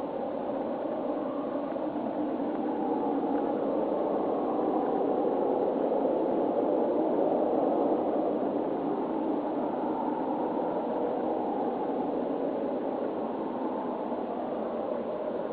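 A steady, unidentified distant roar, a rumbling drone with no clear pitch, of the kind reported as a 'strange roaring noise'. It swells a little about halfway through and eases off again toward the end.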